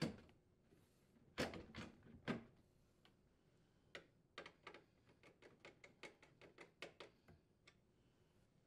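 Faint knocks as the freezer drawer front is set onto its metal slide rails, then a string of small clicks and ticks as a hand nut driver turns the screws that fasten it to the glide brackets.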